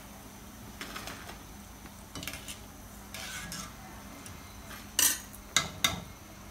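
Wire skimmer clinking and scraping against a metal karahi as fried pakoras are lifted out of the hot oil, over a faint steady sizzle. Three sharp metal knocks come about five to six seconds in, the loudest sounds here.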